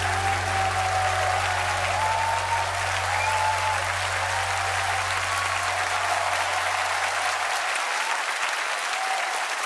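Concert hall audience applauding with cheers at the end of a song. Under the clapping, a held low note from the music fades out about eight seconds in.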